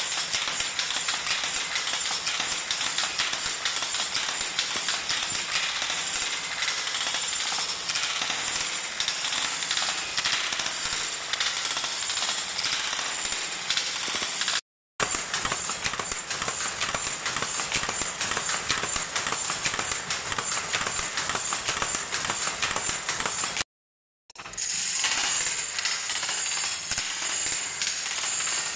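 An 80-year-old single-width Hattersley loom weaving at full working speed: a dense, rapid mechanical clatter. The sound cuts out completely twice, briefly, at about 15 s and 24 s.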